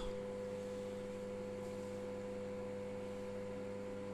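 DeLonghi microwave oven running on full power, a steady electrical hum with an even tone. The popcorn bag inside has not started popping yet.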